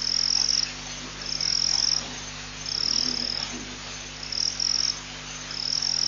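High-pitched trilling call of a small night-calling animal, each trill about two-thirds of a second long, repeated about every second and a half, over a steady low electrical hum.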